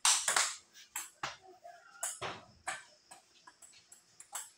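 Table tennis ball being struck by paddles and bouncing on the table: a string of sharp clicks and knocks at uneven spacing.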